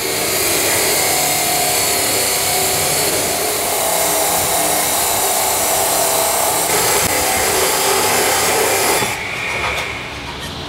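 Abrasive cut-off (chop) saw grinding through a steel tube: a loud, steady grinding that drops away about nine seconds in.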